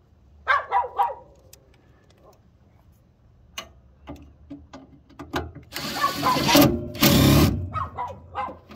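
A dog barks three times in quick succession. From about six seconds in, a power driver on a long extension bit runs in two short, loud spurts, working the inducer motor's mounting screws.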